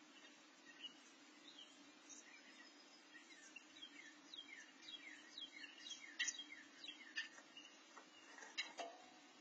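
Faint high, thin chirps from Carolina wren nestlings begging as they are fed. Each chirp slides downward, and they come several a second from about three and a half seconds in, thickest around six seconds. A few soft rustling clicks of nest material come near the end, over a steady low hum.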